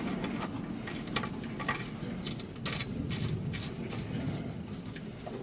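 Irregular light clicks and knocks, the loudest about two and a half seconds in, over a steady low background.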